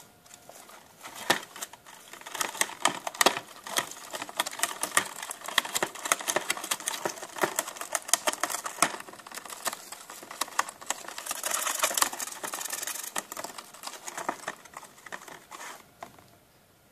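Gerbil gnawing and tearing cardboard: rapid, irregular crunching clicks and small rips that start about a second in, grow denser for a stretch, and stop near the end.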